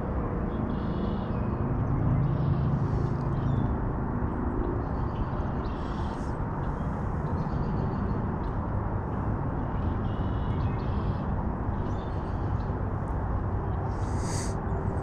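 Steady outdoor background noise with short bird calls repeating every second or two.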